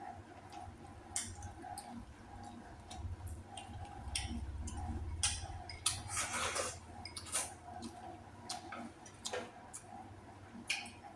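A person eating close to the microphone: irregular wet mouth clicks and smacks while chewing, with a brief louder rustle about six seconds in.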